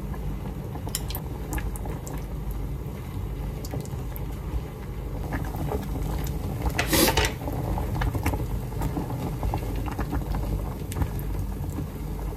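Tomato-and-milk sauce bubbling in a small pan, with scattered light clicks and one short, louder noisy burst about seven seconds in.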